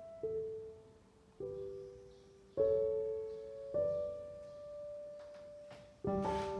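Slow solo piano music: single notes struck about once a second and left to ring out, with a fuller chord near the end.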